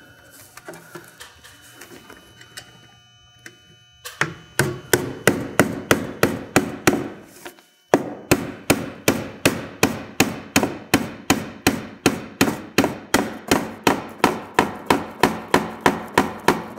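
Claw hammer driving nails through aluminum fascia, struck in quick even blows about three a second. The hammering starts about four seconds in after some faint handling sounds and breaks off briefly near eight seconds.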